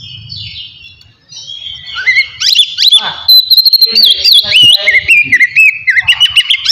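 Oriental magpie-robin (kacer) singing: a fast run of clear whistles, slurred up-and-down glides and quick chirps. It starts soft and turns loud and dense about two seconds in.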